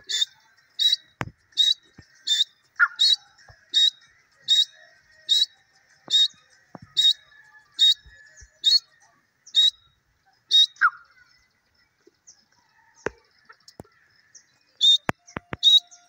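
Grey francolin giving a steady series of short, high-pitched calls, about one every three-quarters of a second. The calls pause for a few seconds about two-thirds of the way through and resume near the end.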